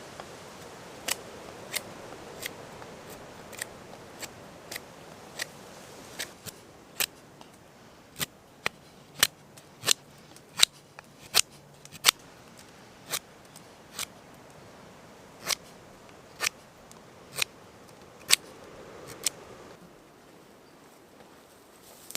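A long series of sharp clicks or snips, irregularly spaced at roughly one to two a second and loudest near the middle, over a faint hiss.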